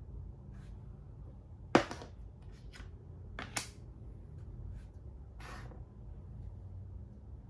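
Makruk (Thai chess) pieces being set down on the board with sharp clicks. The loudest click comes about two seconds in, a second comes about a second and a half later, and a softer, drawn-out clack follows near the end.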